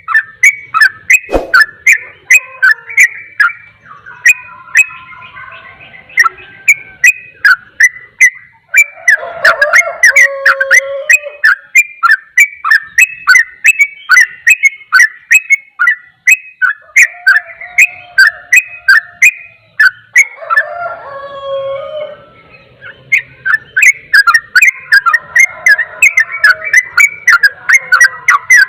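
Yellow-vented bulbul singing in rapid, continuous 'ropel' style: a fast run of short, sharp whistled notes, about three to four a second, broken by brief warbled phrases.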